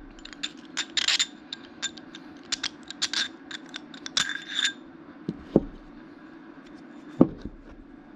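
Metal motorcycle shock-absorber parts clinking and ringing as they are handled: a rapid run of light metallic clinks for the first few seconds, then two duller knocks.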